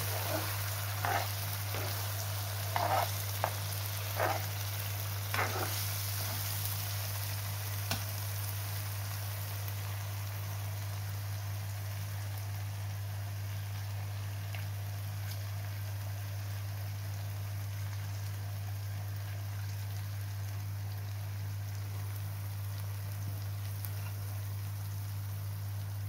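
Lamb liver with onion and tomato sizzling steadily in oil in a frying pan. A metal spoon scrapes and knocks against the pan several times in the first six seconds and once more a little later. A steady low hum runs underneath.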